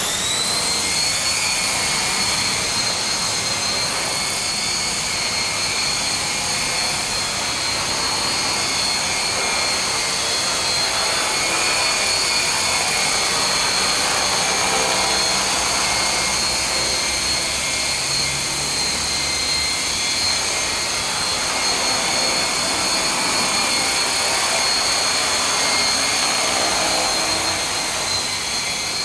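Art-Tech Falcon 3D electric RC helicopter flying: a steady, high-pitched motor and gear whine with the rush of the rotor blades. The whine sags a little in pitch near the end as it sets down.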